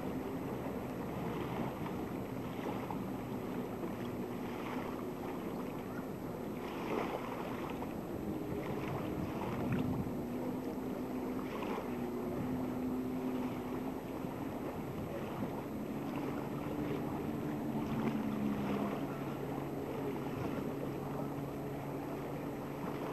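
Wind on the microphone and small waves lapping at the lakeshore, with the low drone of a distant motorboat engine that shifts slowly in pitch.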